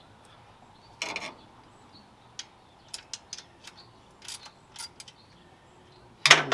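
Short clicks and knocks at an uneven pace from hand work on an engine's alternator belt and pulley, as the belt is worked onto the pulley groove, with a louder knock near the end.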